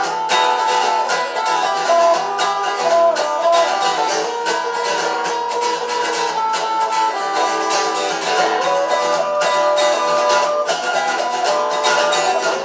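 Instrumental folk music on plucked acoustic strings: quick picked notes carrying a melody over a steady rhythm.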